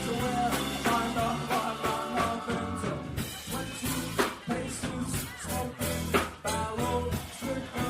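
Live band music, with drum hits over pitched instruments.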